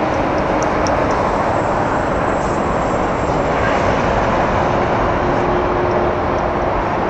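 Steady, loud jet engine noise from a twin-engine airliner moving along the runway.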